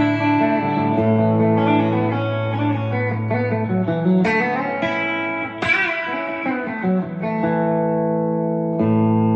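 Clean electric guitar with P90 pickups, volume rolled back to about 7.9, played through a ToneKing Royalist preamp into powered speakers: chords strummed and left to ring, with several chord changes. A rich, chimey clean tone.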